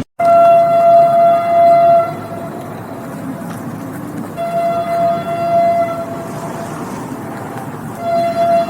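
Train horn sounding three times, one steady pitch each time: a loud blast of about two seconds right after an abrupt cut, a second of about a second and a half around four seconds in, and a short one near the end. The steady rumble of a moving train runs underneath.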